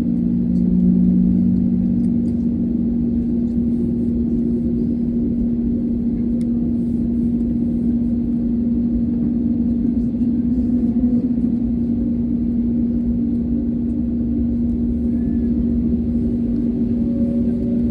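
Airbus A320neo cabin noise while taxiing: its Pratt & Whitney PW1100G geared turbofans at idle give a steady hum over a low rumble, with a second, lower tone for the first couple of seconds.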